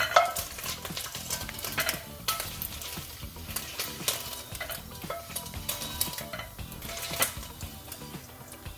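Sausage pieces sizzling in hot olive oil in a frying pan while a metal utensil scrapes and clinks against the pan, lifting them out. The clicks and scrapes come over the sizzle throughout and are loudest near the start.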